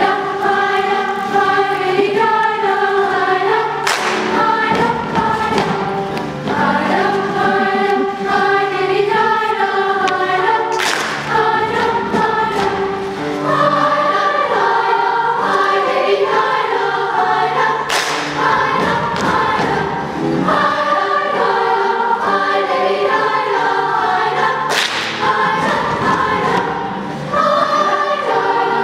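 Children's choir singing in parts, with a sharp percussive hit four times at roughly seven-second intervals.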